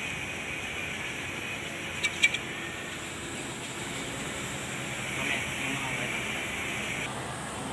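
Steady workshop background noise, with two sharp clicks close together about two seconds in.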